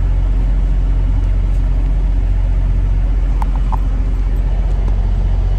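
Semi truck's diesel engine idling, a steady low rumble heard inside the cab, with three faint short chirps a little past halfway.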